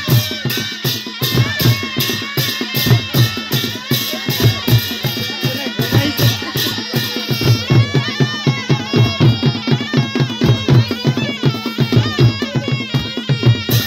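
Traditional Nepali panche baja band playing: barrel drums and cymbals keep a steady beat of about four strokes a second, under a wavering, ornamented melody on a double-reed sanai (shehnai).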